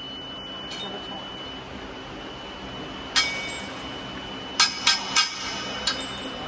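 Sharp metallic clinks of a steel hand tool knocking against a long metal tube: one about three seconds in, then three in quick succession and a few lighter taps near the end, over a faint steady high whine.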